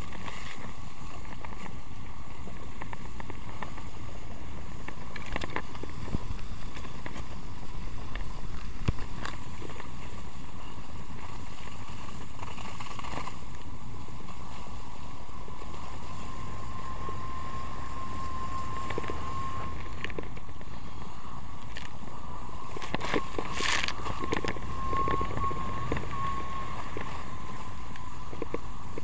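Steady rush of wind and water spray while being towed on a slalom water ski, with a faint steady whine underneath and a few louder surges of spray.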